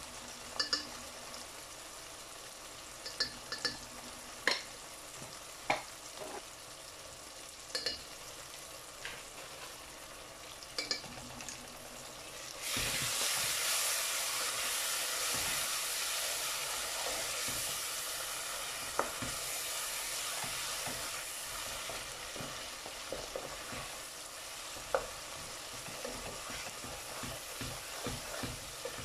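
Onion-tomato masala frying and sizzling in oil in a nonstick pan, with scattered clicks and scrapes of a spatula and spoon stirring against the pan. About halfway through, the sizzling suddenly becomes much louder, then slowly eases off.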